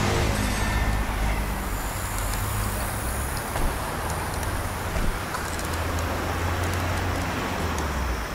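H0 model tram running on the layout track close by, a steady low motor hum and wheel rumble with a few faint clicks.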